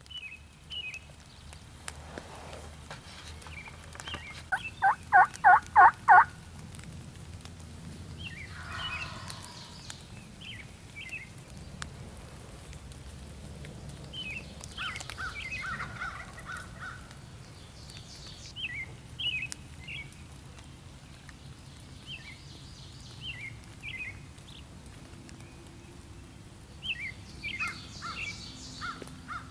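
Wild turkeys calling in the field: a run of about five loud, evenly spaced calls about five seconds in, with softer short calls scattered throughout and another cluster near the end.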